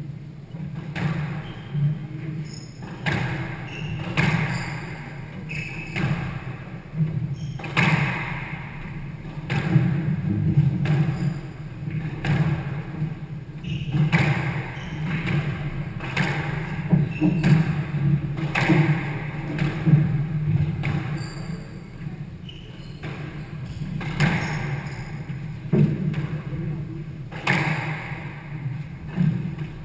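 Squash rally: the rubber squash ball struck by racquets and smacking off the walls in a steady string of sharp hits, with short squeaks of court shoes on the wooden floor between them.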